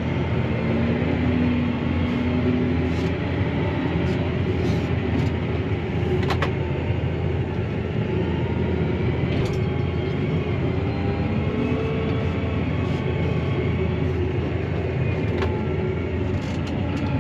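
Claas Arion 650 tractor's six-cylinder diesel engine running steadily under load, heard from inside the cab while driving over a grass silage clamp to compact it, its pitch drifting a little with engine speed. A few sharp clicks ring out in the cab.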